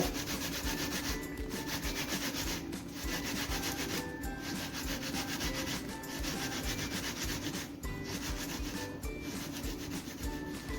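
Peeled bananas being grated by hand on a grater: continuous rasping strokes with a brief break every second or so.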